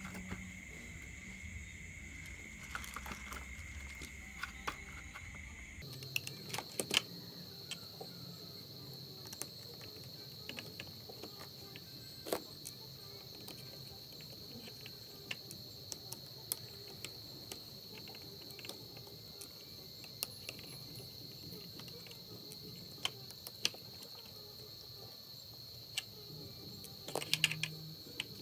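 Scattered clicks and taps of hard plastic RC truck chassis and gearbox parts and small screws being handled while it is taken apart, with a louder cluster of clicks near the end. A steady high-pitched tone runs underneath and jumps higher about six seconds in.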